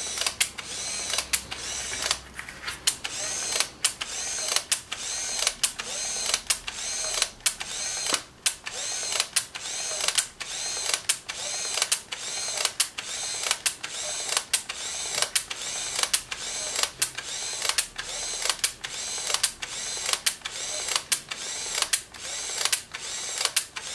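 Pleomax 30DLX point-and-shoot 35 mm film camera firing frame after frame: a shutter click, then the whir of its motor advancing the film, repeating about every two-thirds of a second as the roll is shot through toward its last frame.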